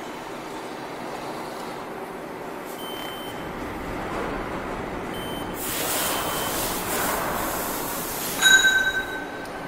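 CNC vertical machining centre running, with two short faint beeps in the first half and a rush of hiss partway through. About eight and a half seconds in comes a loud, high-pitched squeal, the loudest sound here.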